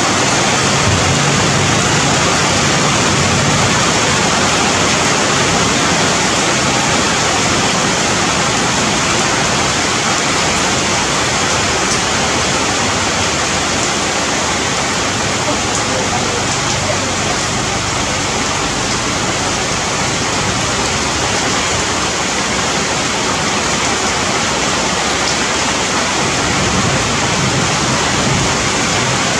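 Steady rain falling on trees and foliage, a dense, even hiss that does not let up.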